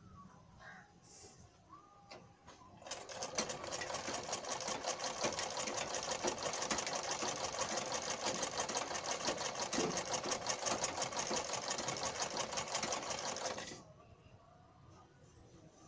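Sewing machine running at a steady fast pace, stitching a seam: a rapid, even clatter of the needle. It starts about three seconds in and stops about two seconds before the end.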